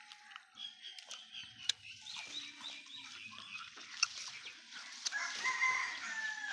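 Animal calls: a run of short high chirps in the first half, then a longer call with several stacked tones near the end, with a few sharp clicks in between.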